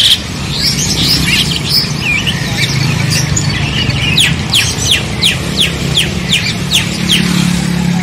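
Many caged songbirds chirping and calling over one another. From about four seconds in, one bird repeats a quick descending note about three times a second for some three seconds. A steady low rumble runs underneath.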